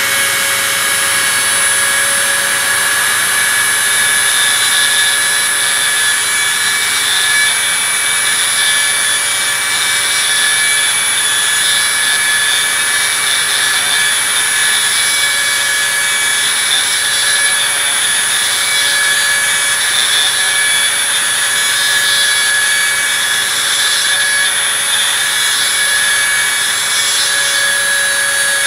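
Handheld rotary tool with a small grinding stone, running steadily at high speed and grinding a small steel part. It makes a continuous high-pitched whine with a grinding hiss.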